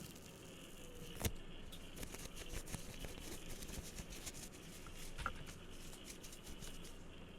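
Close-miked hands handling and tapping small objects: faint scratching and light ticks, with one sharper click about a second in.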